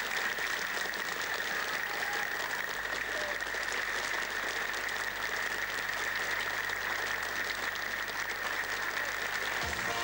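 Studio audience applauding, a dense steady clapping. Right at the end a band starts playing again.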